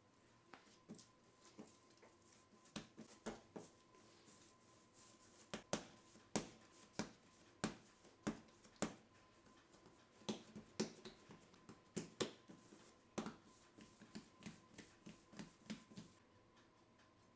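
Hands slapping and pressing a ball of soft yeast dough against a countertop while shaping it, giving irregular soft slaps and taps, about one or two a second.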